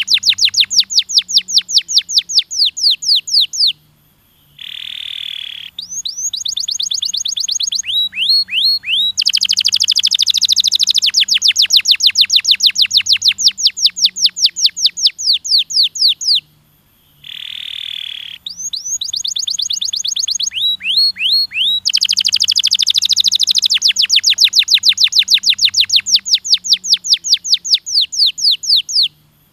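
Domestic canary singing: long trills of fast, falling whistled notes, about ten a second, broken by short steady lower notes. The same phrase sequence comes round twice.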